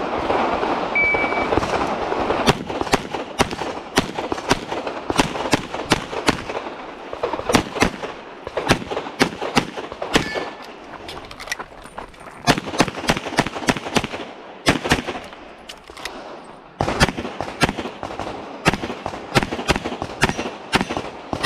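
A shot timer beeps once about a second in. Then a competition pistol fires fast strings of shots through an IPSC practical shooting stage, with short pauses between the strings.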